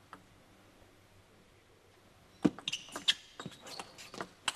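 Table tennis ball clicking off the rackets and the table in a quick rally, starting about halfway in with one sharp hit and then several lighter clicks a few tenths of a second apart.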